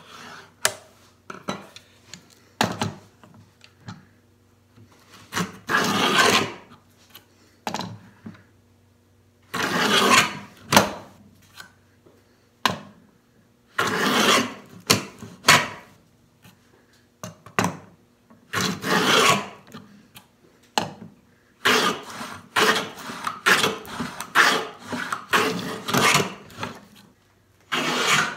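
Hand tools working along a groove in a wooden rail: a series of rasping cutting strokes, each about a second long, with pauses between them. The strokes come closer together near the end.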